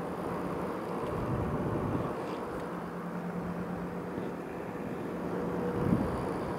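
Small fans of a USB laptop cooling pad running with a steady hum and whir, picked up by a handheld microphone moved close over each fan in turn. The hum's steady tone drops out for about a second early on, and there is a brief bump near the end. The fan noise is put down to a factory design defect.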